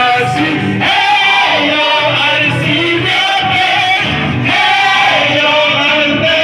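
A group of singers singing together into handheld microphones with electric guitar accompaniment, amplified through a PA system.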